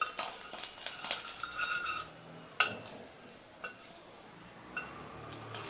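Metal spatula clinking and scraping against an iron kadai as pieces of frying tangra fish are turned over, about six sharp ringing strikes, over a light sizzle of shallow oil.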